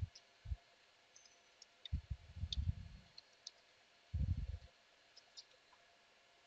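Faint, scattered clicks and a few soft low thumps from a computer keyboard and mouse being used.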